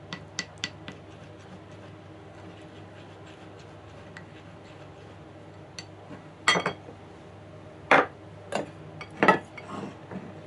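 A metal spoon clinking a few times against a small ceramic bowl while stirring a liquid, then, a few seconds later, four loud knocks and clatters of tableware and a metal mesh colander being moved and set down on a cutting board.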